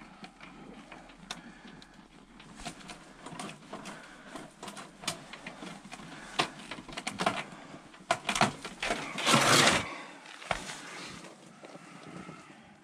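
Clicks, knocks and rustling from hands working a portable propane heater's hose and fittings, with a brass fitting being attached to a propane tank near the end. A loud rush of noise lasting about a second comes a little past nine seconds in.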